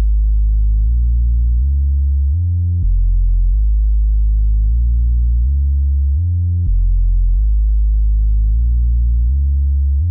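Electronic background music made only of a deep synth bass line: sustained low notes, a new note roughly every three-quarters of a second, with nothing higher in pitch above them.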